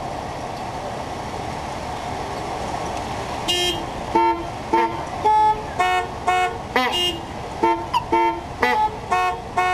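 Car horns blaring in a fast rhythmic run of short blasts at several different pitches, some bending in pitch, starting about three and a half seconds in, after steady background noise. The cars' horns are being played as the solo instruments of a horn concerto.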